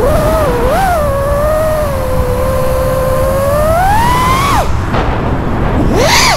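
FPV freestyle quadcopter's brushless motors and propellers whining. The pitch holds steady, climbs as the throttle comes up about four seconds in, and drops away for about a second. It then surges sharply upward again near the end.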